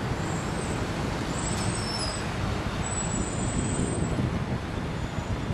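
Steady city street traffic noise heard from a moving bicycle, with wind rumbling on the microphone.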